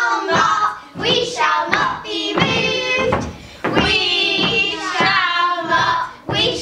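Children's voices singing a song in phrases, with held notes between short breaths.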